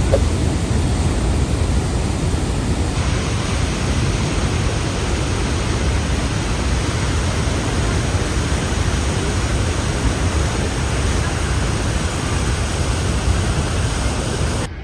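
Steady rushing roar of Niagara Falls' water close by, loud and even, heaviest in the low end; it cuts off suddenly near the end.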